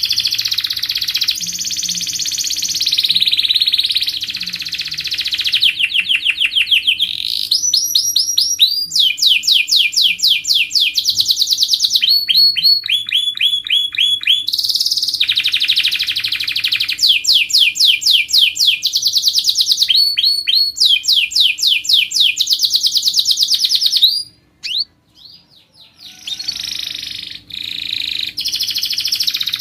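Domestic canary singing a long song of rapid, evenly repeated trills, one phrase after another, each at its own speed and pitch. The song breaks off for about two seconds near the end, then resumes.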